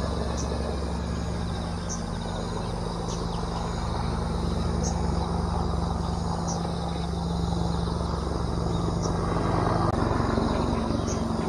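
A helicopter drones steadily overhead, and it is the loudest sound. Over it, an Arctic warbler gives short high notes every couple of seconds.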